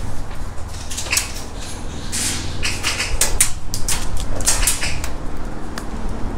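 Scattered, irregular knocks and rattles on a van's bare sheet-metal body and floor, a dozen or so over a few seconds.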